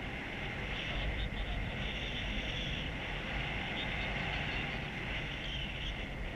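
Steady wind noise from the air rushing over a paraglider pilot's camera microphone in flight, a constant rush with heavy low rumble.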